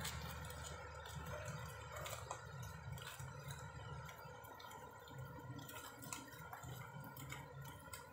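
Faint low hum of distant road traffic, with scattered small clicks and taps.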